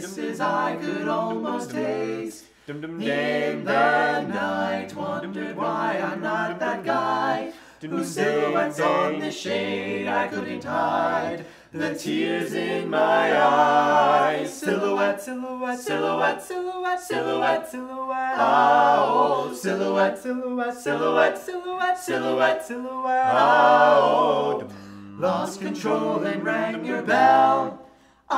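An a cappella vocal group singing in harmony, with a light steady beat.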